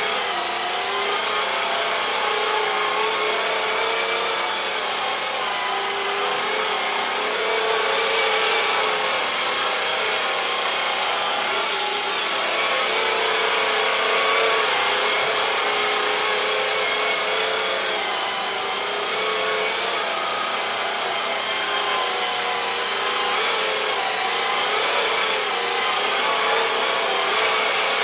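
Cordless swivel sweeper running steadily, its small motor and spinning brushes whirring as it is pushed back and forth over the floor sweeping up debris.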